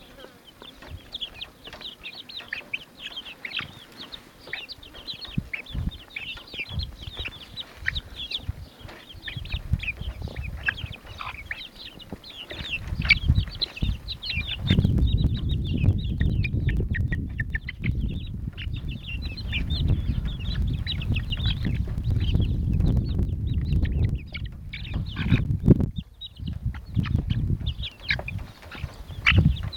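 Young chickens cheeping and clucking, many short high calls overlapping. From about halfway in, a louder low rumble runs under the calls.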